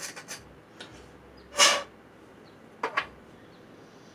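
Hand deburring tool scraping the cut end of a hard water-cooling tube in a few short strokes that stop about half a second in. About a second and a half in comes one louder, short burst of noise, then two quick clicks near three seconds.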